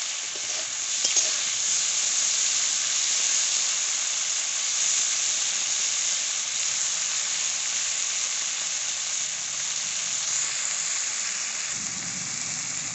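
Turmeric- and salt-coated prawns sizzling steadily in hot mustard oil in a metal karahi, stirred with a steel spatula, with a couple of light clicks about a second in.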